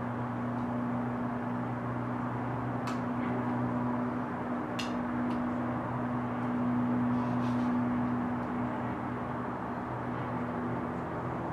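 Steady low hum of background noise, with a few small sharp clicks as wire connectors are pushed into the grinder's display circuit board.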